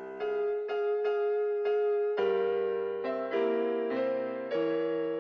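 Music: a keyboard plays gentle repeated chords, a new chord about every half second, and a low bass note comes in about two seconds in.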